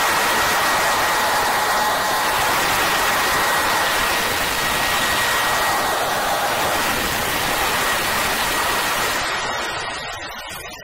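A dense wash of synthesized noise, like a steady hiss, with a faint held high tone and dim drones under it. It fades down over the last couple of seconds.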